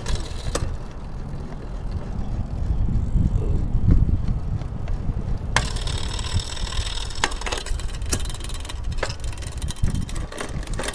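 Road bike drivetrain turned over by hand on a shifting check: the chain runs over the cassette and derailleur with a hiss and rapid ticking that starts about halfway through, and sharper clicks come as gears change. A low rumble runs underneath.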